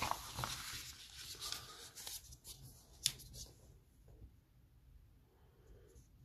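A paper exam sheet sliding and rustling across a desktop as it is pushed into place, with one sharp tap about three seconds in.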